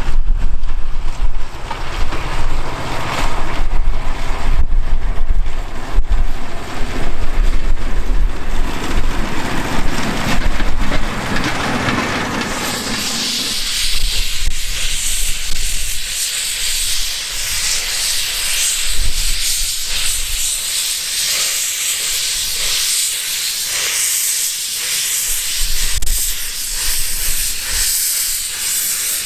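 A small open rail trolley runs along the narrow-gauge track with a loud low rumble. About thirteen seconds in this gives way to a steady high hiss of steam from the open cylinder drain cocks of the Kerr Stuart 0-4-0T tank locomotive Diana.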